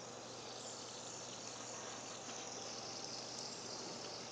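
Fidget spinner spinning in the hand, its bearing giving a steady, high-pitched whir.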